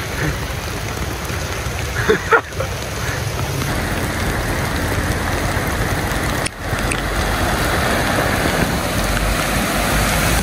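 Heavy rain pouring steadily onto pavement and running water. About two-thirds of the way in the sound cuts and comes back louder and fuller, with the low rumble of cars wading through deep floodwater.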